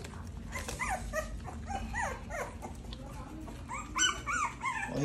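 A litter of three-week-old American bully puppies whimpering and squealing: many short, high cries that rise and fall, several overlapping, with the loudest cluster about four seconds in.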